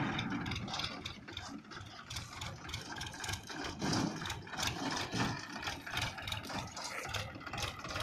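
Powertrac Euro 50 tractor's diesel engine running as the tractor drives slowly across the field pulling a trailer, with rattling.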